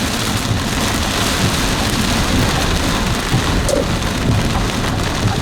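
Large hailstones falling hard, a dense, steady clatter of countless impacts.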